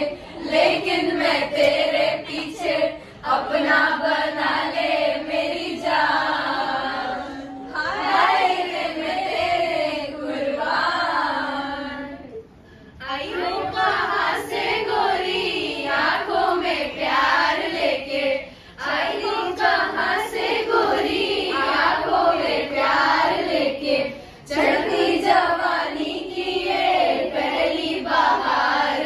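A group of young people singing a song together without instruments, with short breaks between lines.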